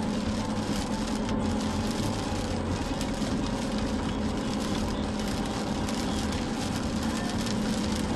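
Inside a car driving through heavy rain: a steady rush of rain and wet tyres on the road over a low, even drone from the car.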